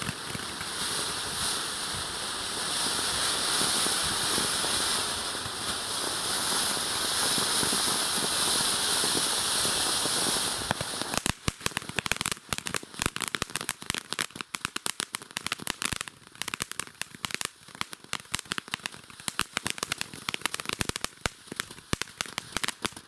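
Chico Chico ground firework fountain burning: a steady spraying hiss for about the first eleven seconds, then a dense, rapid crackling until it dies away near the end.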